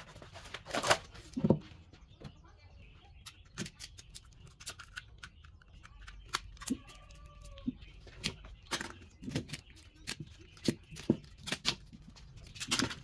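Plastic cable ties being cut with a utility knife and pulled off a glued-up segmented wood blank: irregular sharp clicks and snaps.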